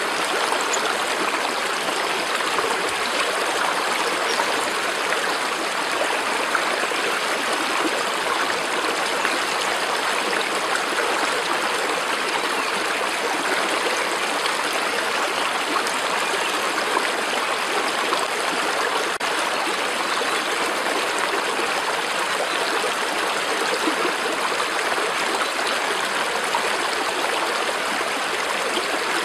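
Water running in a stream, a steady even babble with no change in level.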